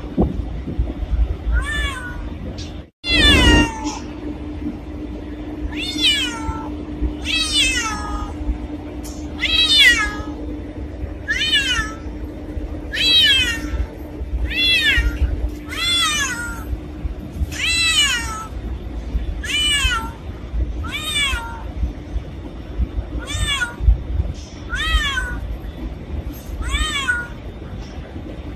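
A cat meowing over and over, a short falling meow every second or two, with a brief break about three seconds in.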